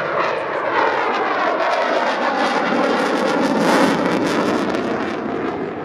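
Eurofighter Typhoon's twin EJ200 turbofan jet engines heard in a low display pass, a steady loud jet noise whose pitch slowly shifts as the aircraft moves, loudest about four seconds in.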